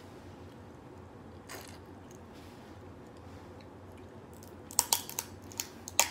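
Crab leg shells cracking and snapping in the hands: one crack about a second and a half in, then a quick run of sharp, loud cracks near the end.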